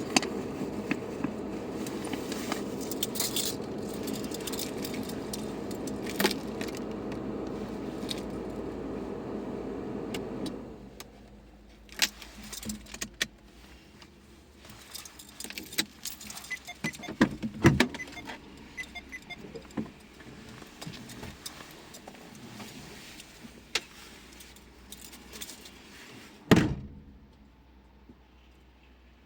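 Car engine running steadily, then switched off about a third of the way in; after that, keys jangling with scattered clicks and rustling, and one loud thump near the end.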